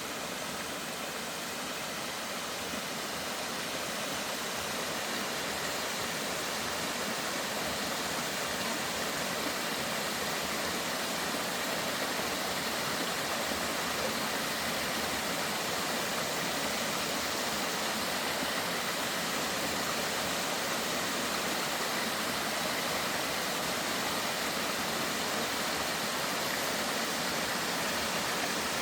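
Water of a mountain valley stream rushing steadily, an even, unbroken noise that grows slightly louder over the first dozen seconds.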